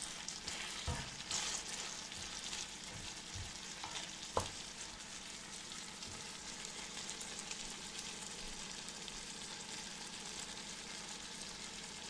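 Chicken pieces and chopped tomato sizzling steadily in a frying pan while a wooden spoon stirs them, with a sharp knock about four seconds in.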